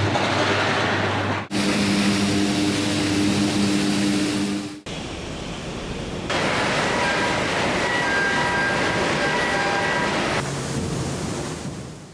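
Steady industrial machinery noise, a loud even rush with a low steady hum in places, changing abruptly at several hard cuts.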